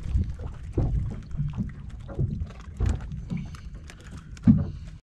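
Small bait fish on a sabiki rig being hauled aboard a small boat, with irregular knocks and thumps of fish and tackle against the hull over a low rumble of wind and water; the loudest thump comes about four and a half seconds in.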